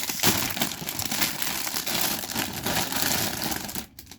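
Plastic bag crinkling and rustling as it is handled and opened, with many fine crackles. It stops abruptly near the end.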